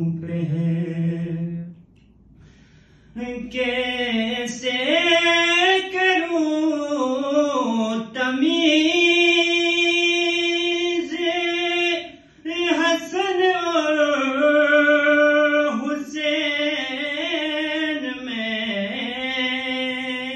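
A man singing a manqabat unaccompanied into a microphone, in long drawn-out notes that waver and bend. He breaks off briefly about two seconds in, then sings on.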